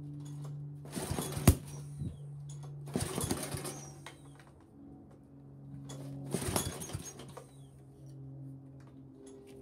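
Three pulls on a small riding-mower engine's recoil starter, each a short rasping whir of the engine turning over without firing, with a sharp click on the first pull. The engine does not catch, which the owner later traces to a cracked carburetor intake.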